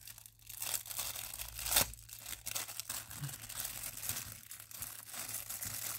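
Packaging being torn open and crinkled by hand: a steady crackling of small tears and rustles, with one louder tear about two seconds in.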